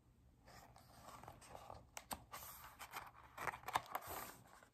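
Faint rustling and scraping of paper as the page of a large picture book is turned, with small clicks and flaps that grow louder toward the end.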